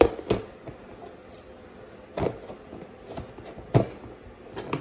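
Plastic reptile tub and its snap-on lid being handled and set in place, giving about six hard plastic knocks and clicks, the loudest a little under a second before the end.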